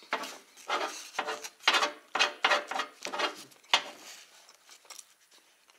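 Metal fork scraping and prodding at food on a parchment-lined baking tray: short rasping scrapes about two a second, growing fainter after about four seconds.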